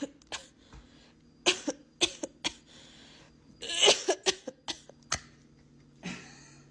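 A series of about ten short, sharp coughs at irregular intervals, over a faint steady hum.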